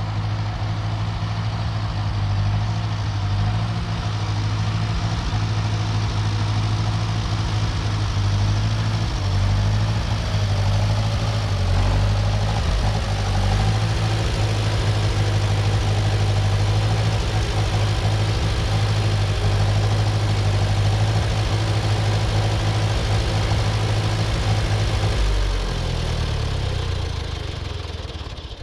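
Tractor engine running steadily at low revs, then switched off about three seconds before the end and winding down to a stop.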